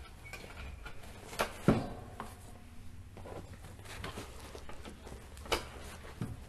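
Softbox support rods being fitted into the holes of the five-socket lamp head: a handful of light clicks and knocks as rod and head meet, with soft fabric handling between them.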